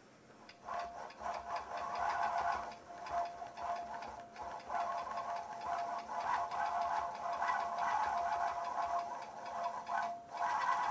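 Longarm quilting machine stitching: a steady motor whine with fast, even needle strokes. It starts about a second in, slows a couple of times, stops briefly near the end and starts again.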